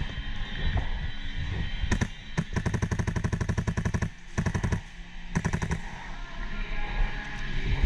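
Airsoft rifle firing: a couple of single shots, then a rapid burst of about twenty shots lasting under two seconds, and a short burst of about five shots a little later.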